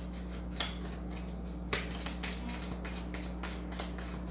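Tarot cards handled in the hand while a card is drawn from the deck: a few short, light clicks and flicks of card stock over a steady low hum.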